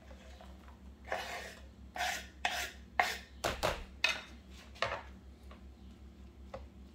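Knife blade scraping chopped onion and cilantro off a wooden cutting board: a run of about seven quick rasping strokes. Near the end, a few faint clicks of a spoon stirring in the bowl.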